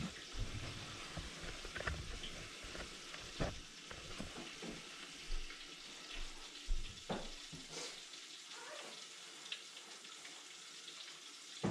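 Hot oil sizzling and crackling steadily in a countertop electric deep fryer, with a few knocks in between, the loudest about seven seconds in.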